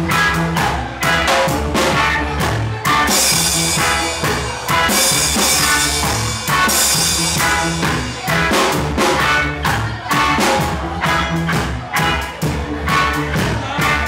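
Live reggae band playing: a drum kit keeps a steady beat under electric guitars and keyboards, with a brighter, busier stretch from about three to seven seconds in.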